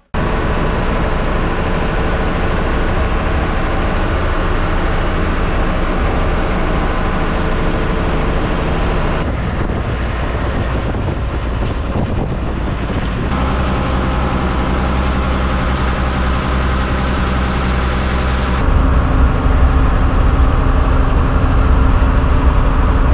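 Diesel engine of an MSRTC bus running steadily under way, a constant droning hum. Its tone changes abruptly three times, about 9, 13 and 19 seconds in.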